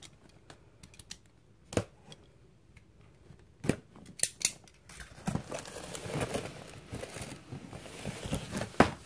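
A large cardboard box being cut and opened: a few sharp snips and clicks at first, then from about halfway a steady rustle and scrape of cardboard as the box is worked open, with one sharp knock near the end.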